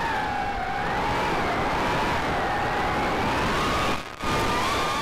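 Four brushless motors of a 4-inch FPV racing quadcopter (Cobra 2206 2100kv, tri-blade props) whining in flight over wind rush on the onboard camera's microphone. The pitch slides up and down with throttle. The sound drops away briefly about four seconds in.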